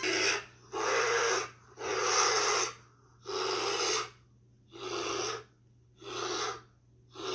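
Bear sound effect: a run of seven breathy, rasping huffs about a second apart, fading toward the end.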